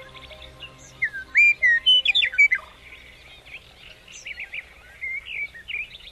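Birds chirping and singing in quick, whistled chirps, loudest between about one and three seconds in and picking up again near the end, over soft background music that fades out in the first seconds.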